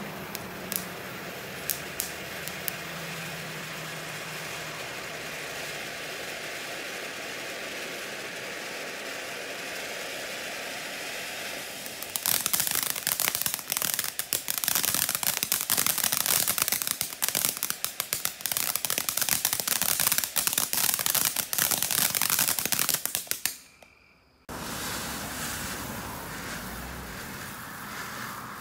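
Consumer ground-fountain fireworks spraying sparks with a steady hiss and a few sharp pops. About twelve seconds in, dense rapid crackling takes over for about eleven seconds. The sound cuts out briefly, then a steady hiss resumes.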